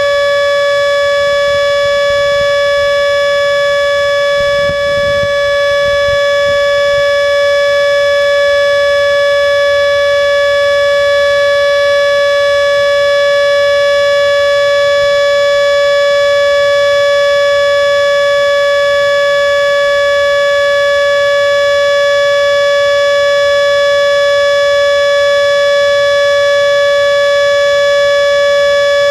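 Miniature Federal Signal Model 2 siren running at full speed, holding one steady, loud pitch with strong overtones: the steady tone of its three-minute monthly test.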